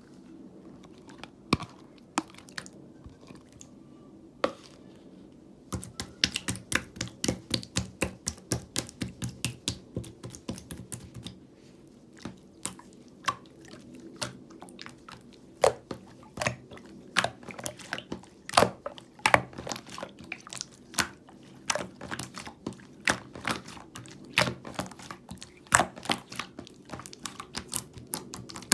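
Glitter slime being squeezed and kneaded by hand, giving sharp sticky clicks and pops. Only a few clicks come at first; about six seconds in they turn into a dense run of several a second.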